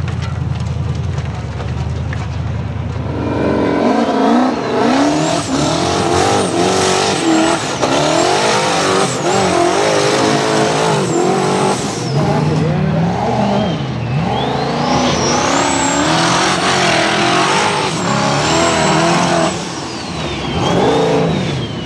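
Off-road racing buggy engine rumbling low for the first few seconds, then revving hard over and over, its pitch rising and falling quickly as the buggy climbs a steep dirt hill under full load. A thin high whine glides up and down above the engine sound.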